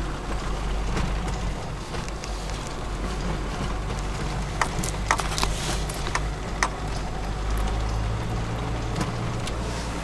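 SsangYong Musso heard from inside the cabin while driving slowly in second gear on a snow-covered road: a steady low engine drone under road and wind noise. A handful of sharp clicks come in quick succession around the middle.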